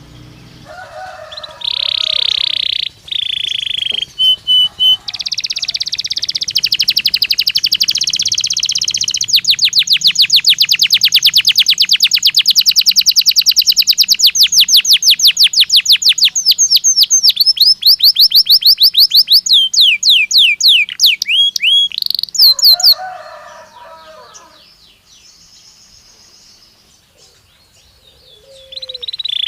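Domestic canary singing a long song phrase of high notes and rolls, building into a very fast trill in the middle and then slower sweeping notes. It stops about 23 seconds in, and the song starts again near the end.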